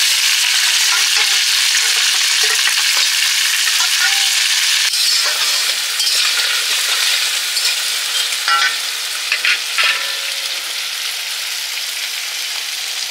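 Crab frying with browned onions in hot oil in a kadai while being stirred: a steady sizzle that eases slightly towards the end. A few short metal clinks come about two-thirds of the way in.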